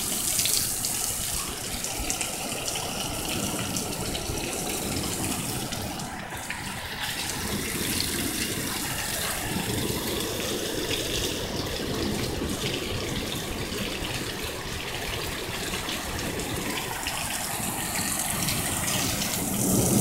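Heavy rain pouring down, a steady continuous rushing noise that sounds like a jet.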